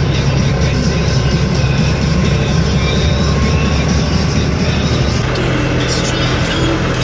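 DTZ 244 tractor's diesel engine running steadily while pulling a wheel rake through hay, its tone shifting about five seconds in.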